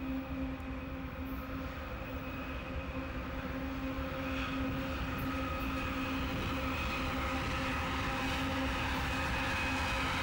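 Union Pacific freight train's lead diesel locomotives, three GE and one EMD, running as they approach. A steady engine drone with a held hum grows gradually louder.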